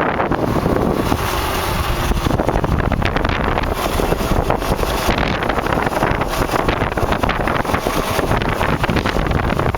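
Kawasaki KLX dirt bike coasting with its engine off over a rough trail: wind buffeting the microphone, with a dense clatter of tyre, chain and suspension rattles.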